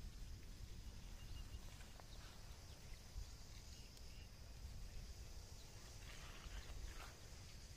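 Faint outdoor ambience: a steady low rumble with a few faint, short chirps.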